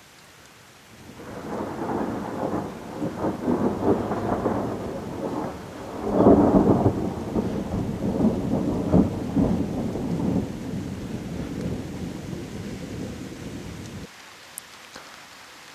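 Thunder rolling through a thunderstorm with rain falling. The rumble builds about a second in, crackles, swells loudest around the middle and breaks off abruptly near the end, leaving the patter of rain.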